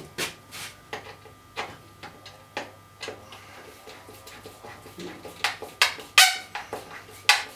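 Sheet-metal T8 tube light fixture being pushed up and fitted to the ceiling: a string of scattered clicks and knocks, with a few louder, briefly ringing metal clanks near the end.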